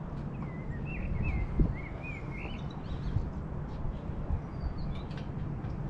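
Outdoor ambience with a steady low rumble, over which a bird chirps a quick run of rising and falling notes in the first half.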